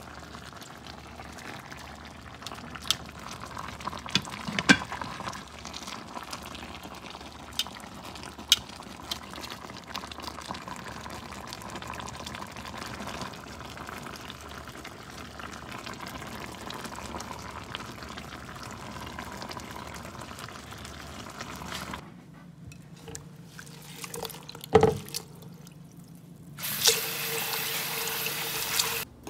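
Fish in tomato-based Creole sauce bubbling in a pan, with a few sharp clicks of metal tongs against the pan as the fish are turned. Near the end, tap water runs steadily over pigeon (gungo) peas in a glass bowl.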